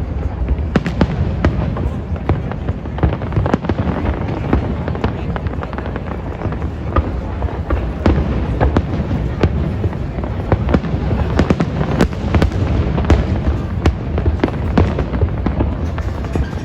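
Fireworks display going off: many sharp bangs in rapid, irregular succession over a steady low rumble.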